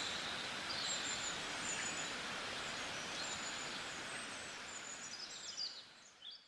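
Birds chirping in short high calls over a steady background hiss, fading out near the end.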